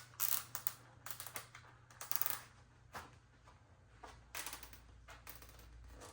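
Plastic zip tie being wrapped around a bicycle tire and rim and pulled tight through its ratchet head: irregular bursts of clicking and rasping, with handling of the tire.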